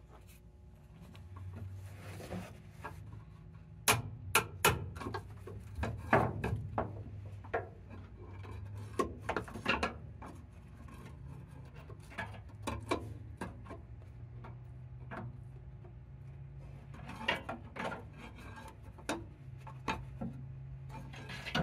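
Irregular knocks, taps and scrapes of tools and metal against a steel blanking plate under a locomotive tender, as the stuck plate is worked loose, over a faint low hum.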